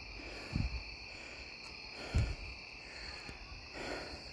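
Steady chirring of night insects such as crickets, with two dull low thumps about half a second and two seconds in.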